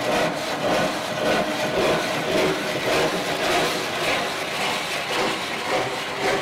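Coarse belt-sander sandpaper wrapped around a 2x4 block being rubbed by hand along the edge of an oak desk, in steady strokes about twice a second, breaking the sharp corner so it will not chip.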